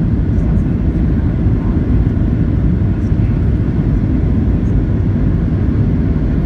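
Boeing 737-700 cabin noise at a window seat over the wing: a steady low roar of the CFM56 engines and rushing airflow, unchanging throughout, with the airliner low on approach.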